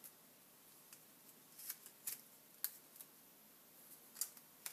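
Vellum paper crackling faintly as a scoring tool presses and curls the petals of a stacked vellum flower: about five short, sharp crackles spread over a quiet background.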